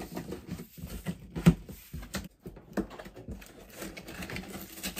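Cardboard box being torn and pried open by hand: irregular scratching, ripping and knocking of the glued-shut cardboard, with one sharp knock about a second and a half in.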